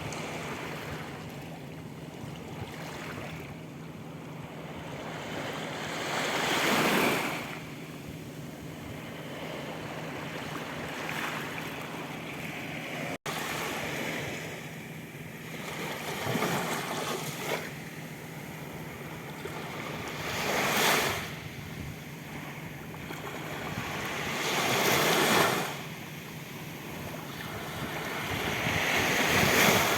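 Sea waves breaking and washing up the beach, the rush swelling and falling back five times.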